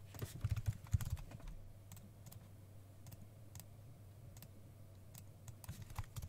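Computer keyboard keystrokes and mouse clicks, a quick run of louder clicks about half a second to a second in, then scattered single clicks, over a low steady hum.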